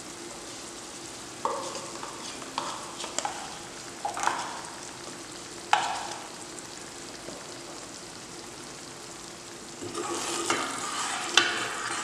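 Masala gravy sizzling in a pan with a freshly added peanut-and-coconut paste, giving a steady low hiss and a few sharp pops in the first six seconds. From about ten seconds in, a ladle stirs the thick gravy.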